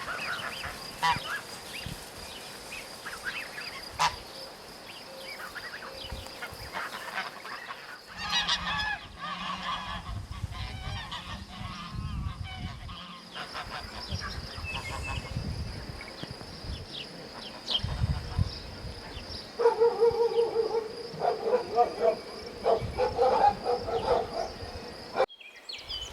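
Geese honking in a rapid run of repeated calls near the end, over faint farmyard background with a steady high insect-like hum.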